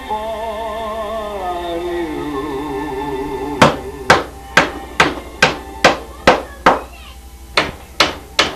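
Music with held, wavering notes that slide downward, then a hammer driving silicon bronze ring nails into a plywood boat panel. It starts about three and a half seconds in with eight quick, even strikes at about two a second, pauses briefly, and ends with three more strikes near the end.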